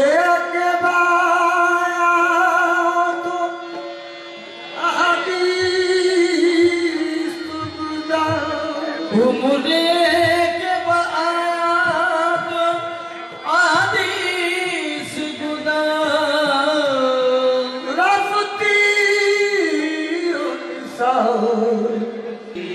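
Qawwali: a man sings long, bending phrases with vibrato into a microphone over the steady held notes of a harmonium. The singing breaks off briefly about four seconds in, then starts again.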